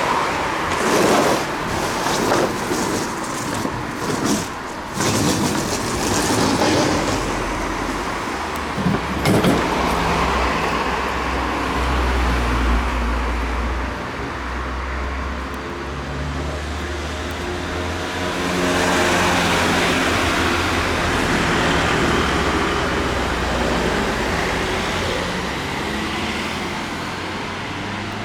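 A motor vehicle engine running steadily, with knocks and clanks through the first ten seconds.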